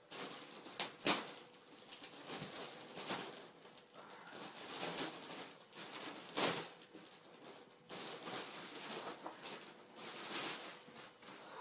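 Clear plastic wrapping being pulled and torn off a new complete skateboard: continuous crinkling and rustling with irregular sharper crackles.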